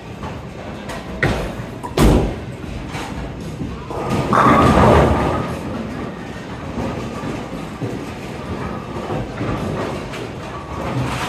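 A Storm Revenant bowling ball thumps onto the lane at release about two seconds in, rolls, and crashes into the pins a couple of seconds later, a loud clatter lasting over a second. Faint background music plays under it.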